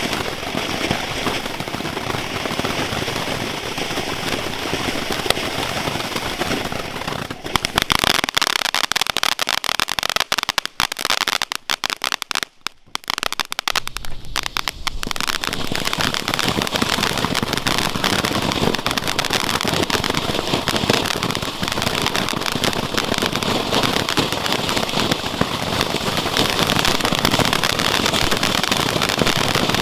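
Ground-effect firework fountains spraying sparks with a steady hiss. About a quarter of the way in, dense crackling sets in with a brief lull in the middle. Steady hissing mixed with crackle follows.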